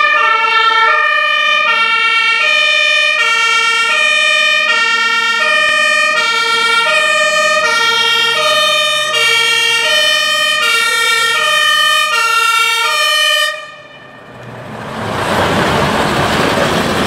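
German two-tone fire-engine horn (Martinshorn) sounding, its two pitches alternating steadily as the fire engine approaches, with a steady higher tone beneath. About thirteen seconds in it cuts off suddenly, and a loud rushing engine and road noise builds as the truck passes close.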